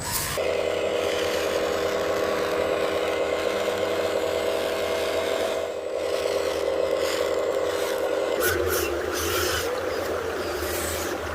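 RC excavator's motor whining steadily over the gritty scrape of soil and gravel. The whine stops about eight seconds in, leaving scraping with a few small clicks.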